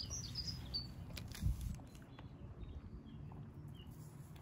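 Small birds chirping in the background over a low steady hum, with a single dull thump about a second and a half in.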